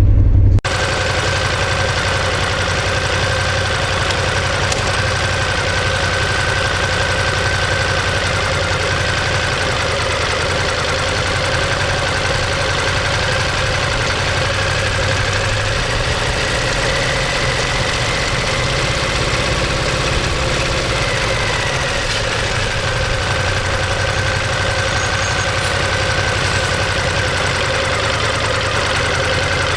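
Ducati Monster 1200S's L-twin engine and exhaust idling steadily.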